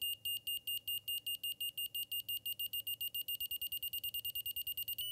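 Stabila TECH digital level's audio signal beeping, a high, steady-pitched tone. The beeps speed up from about four to about ten a second as the level is brought closer to true level.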